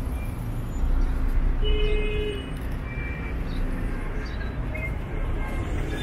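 City street traffic, with car engines running close by and a short held tone about two seconds in.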